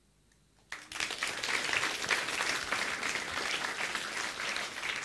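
Audience breaking into applause: quiet at first, then a sudden burst of many hands clapping about a second in that carries on steadily.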